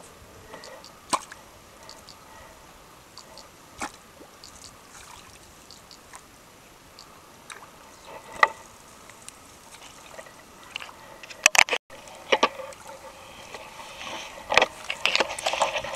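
Scattered splashes and sloshing of water, sparse at first and busier near the end.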